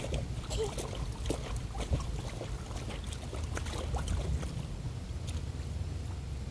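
Pool water splashing and dripping at the pool edge as a child moves in the water, heard as many small scattered ticks, over a steady low rumble.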